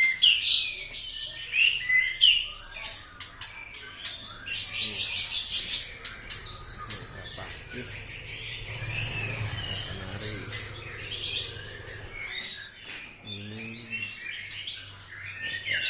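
Many caged songbirds, male white-rumped shamas and their tutor birds, chirping and singing over one another, with a fast high trill about four seconds in.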